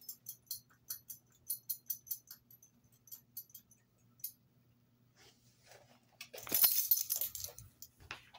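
A dog's collar tags jingling in scattered light clinks as the dog moves about, then a louder burst of jingling and rustling fur for about a second as the dog brushes close to the phone.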